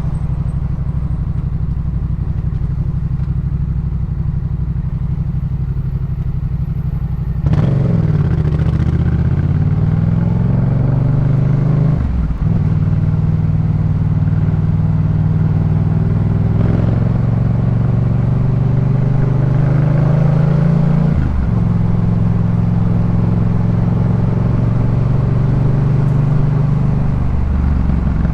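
Yamaha MT-07's parallel-twin engine through a Jeskap K4 full aftermarket exhaust while riding: a steady low note. About seven seconds in the throttle opens and the note jumps louder and rises. There are brief breaks about 12 and 21 seconds in, like gear changes, and the note falls as the throttle closes near the end.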